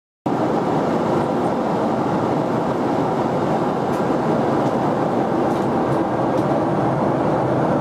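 Steady in-flight cabin noise of a Boeing 777-300ER at cruise: an even rush of airflow and engine rumble, cutting in abruptly just after the start.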